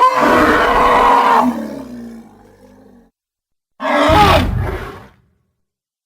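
Two dinosaur roar sound effects, built by mixing animal and monster recordings: a long roar that fades out over about three seconds, then a shorter, wavering roar about four seconds in.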